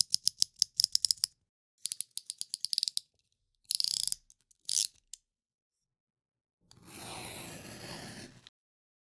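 Utility knife (box cutter) blade being slid out and back in, its slider ratcheting in quick runs of clicks, then a long cutting stroke of the blade through a sheet of material lasting about two seconds near the end.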